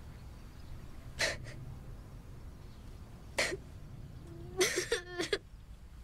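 A boy fighting back tears: two sharp sniffling breaths, then a short whimpering sob about five seconds in.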